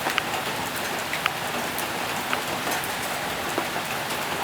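Steady rain falling, with scattered sharp taps of single drops landing close by.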